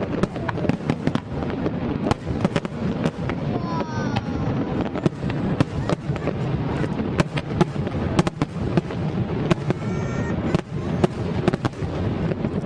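New Year fireworks display going off continuously: dense, rapid bangs and crackles over a steady low rumble, with a couple of short whistles about four and ten seconds in.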